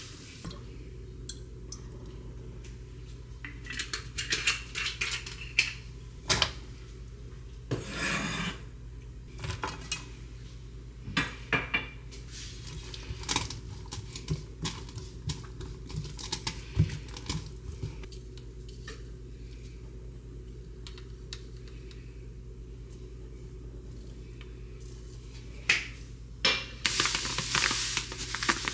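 A silicone spatula knocking and scraping in a nonstick frying pan as strips of fish cake are stir-fried, in scattered clicks over a steady low hum. Near the end a plastic bag rustles as sugar and chili flakes are poured into the pan.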